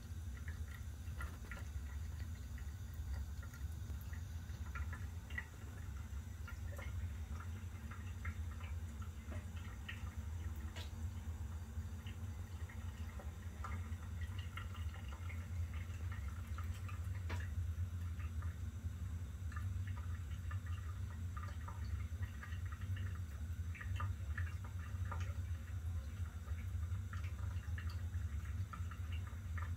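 Thin stream of tap water running from a faucet into a stainless steel sink, with many small scattered ticks and drips, over a steady low hum.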